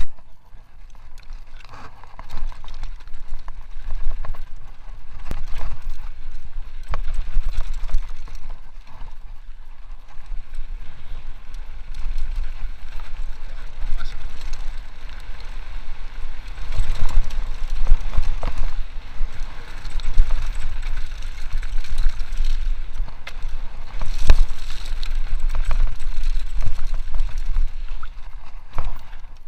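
Downhill mountain bike running over a loose gravel and rock trail: a steady rumble of tyres and wind on the handlebar camera, broken by frequent knocks and rattles of the bike over stones and bumps.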